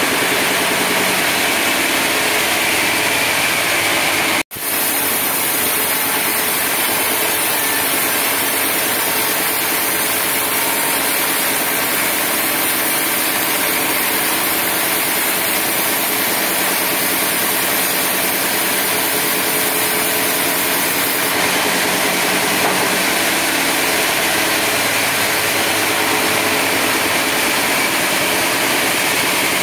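Band sawmill running steadily: a loud, even mechanical noise of the saw and its carriage machinery. The sound drops out for an instant about four seconds in.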